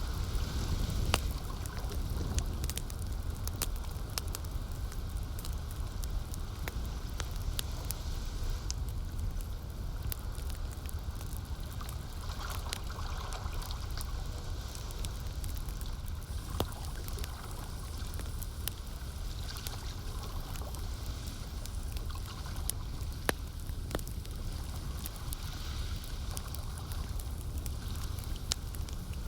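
Campfire crackling with scattered sharp pops, over lake water lapping and a steady low rumble.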